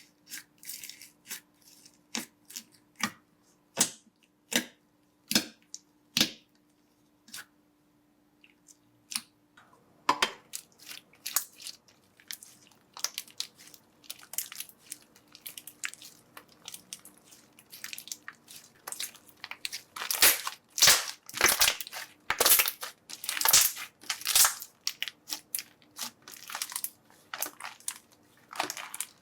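Slime being squeezed and pressed, giving sharp crackling pops: a few at a time at first, then about ten seconds in coming thick and fast and louder.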